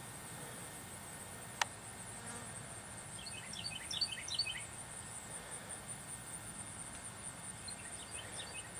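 Quiet outdoor ambience: a steady high insect trill like crickets, with bursts of small bird chirps about three seconds in and again near the end, and a single sharp click early on.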